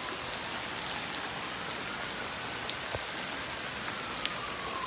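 Heavy thunderstorm rain falling steadily, with scattered sharper drops hitting a surface.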